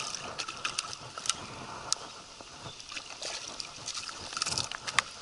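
A small hooked barramundi thrashing and splashing at the water's surface, with many scattered sharp splashes and clicks.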